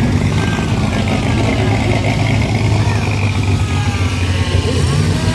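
Car engine running steadily at idle, an even low hum, with faint voices in the background.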